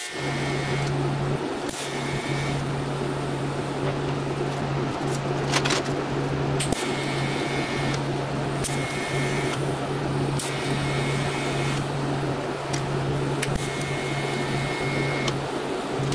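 TIG welding arc buzzing steadily with a hiss as a threaded stud is welded onto a steel disc, with a few short clicks.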